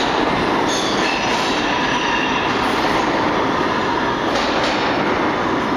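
R160A subway train pulling away down the tunnel: steady rumble of steel wheels on the rails in the underground station, with faint high tones over the running noise and a couple of clicks over rail joints about four and a half seconds in.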